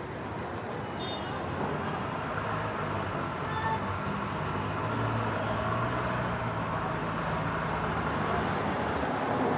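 Steady street traffic noise, with a low engine hum that swells in the middle and fades again.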